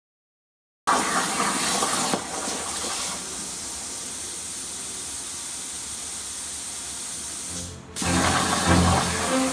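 A steady hiss, louder for about its first second, that cuts off near the end as music with a bass line comes in.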